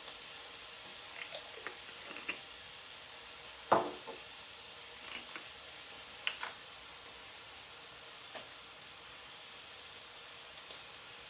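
Browned ground lamb sizzling steadily in a stainless skillet over a low gas flame, with scattered light clicks and knocks as dried thyme is shaken in from a spice jar. One sharper knock comes about four seconds in.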